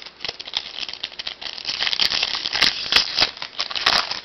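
Foil wrapper of a trading-card pack crinkling and tearing as it is opened by hand, a dense crackle that gets louder about two seconds in.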